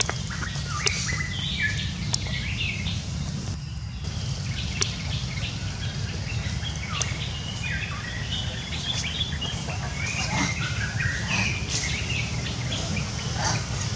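Many short chirping animal calls, scattered and overlapping, over a steady low background hum.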